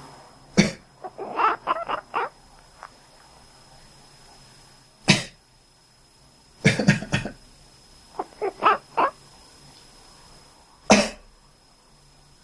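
A person coughs now and then, and a sleeping cat answers two of the coughs with a quick run of short, quacking calls.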